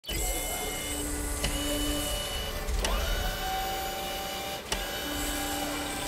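Mechanical sound effects under an animated title: a steady machine whir with shifting hums, a rising whine about three seconds in, and a few sharp clicks.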